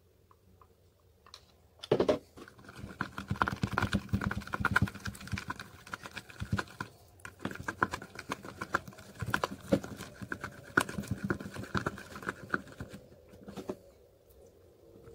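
Wooden craft stick stirring slime mixture in a plastic tub: a quick, uneven run of clicks, taps and scrapes against the tub's sides. It starts about two seconds in and fades near the end.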